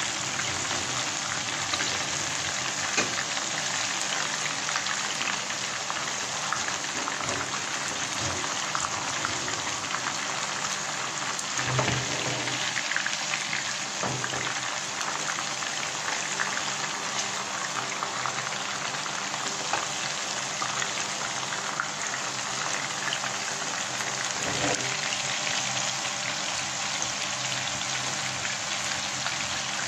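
Chicken and vegetable shashlik pieces shallow-frying in hot oil in a pan: a steady sizzle, the oil well heated and the frying in full swing.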